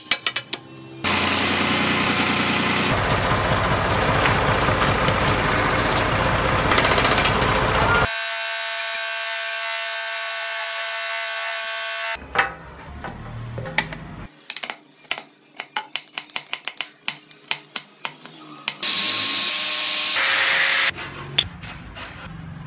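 Scroll saw running and cutting through a wooden block, a dense rasping noise with a fast stroke rhythm, then a steady whine; in the second half, many short sharp clicks and knocks from working the wood, with another loud stretch of sawing noise.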